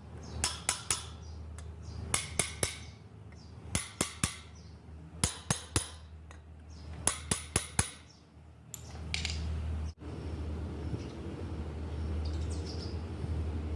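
Sharp metallic clicks or taps in quick groups of three or four, repeated about five times. About nine seconds in, a steady low hum takes over.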